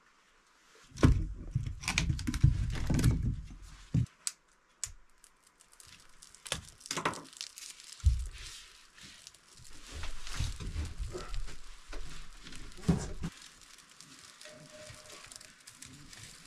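Kindling and paper being handled and laid into a wood stove's firebox to start a fire: crinkling and tearing, with scattered knocks and thunks of wood against the stove.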